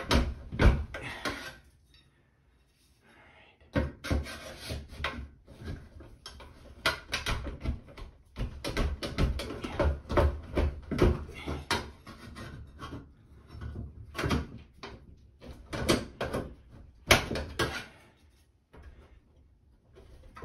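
Flat pry bar prying the old bathroom exhaust fan's sheet-metal housing and its mounting screws loose from the ceiling: many knocks, scrapes and creaks of metal against wood and drywall, in bursts with a short pause about two seconds in and a quiet spell near the end.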